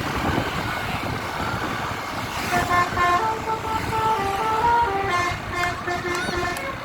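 Bus basuri (telolet) horn playing a quick melody of stepped notes, starting about two and a half seconds in, over engine and road noise.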